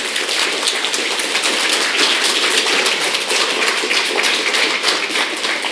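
Audience applauding: a dense, even patter of many hands clapping that begins to die down near the end.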